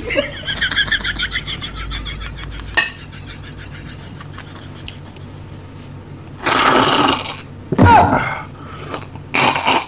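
Loud, exaggerated mouth noises of eating and drinking. Quick wet smacking of chewing comes first, then, later on, two loud slurps of a drink with a short gulp between them.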